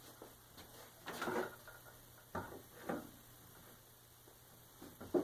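A few faint, scattered knocks and light clatter of plywood and tools being handled while a cut is set up; no saw is running.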